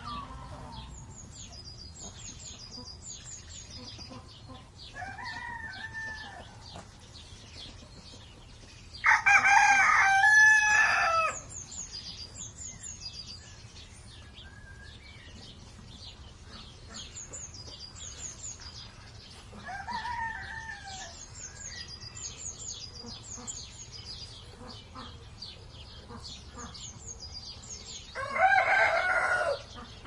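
A rooster crowing twice, once about nine seconds in and again near the end, each crow about two seconds long and the loudest sound. Between the crows come two softer clucking calls, while small birds chirp in short high bursts throughout over a steady low farmyard background.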